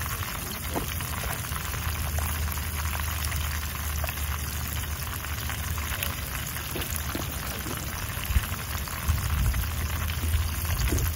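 Fish frying in shallow oil in a pan, a steady sizzle and crackle with scattered small pops and one sharper pop about eight seconds in, over a steady low rumble.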